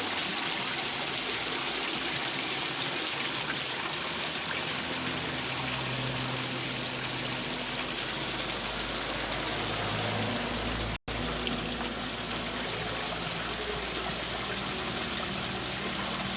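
Water steadily pouring and splashing into a fish pond, the flow kept running by the pond's pump. The sound drops out for a split second about eleven seconds in.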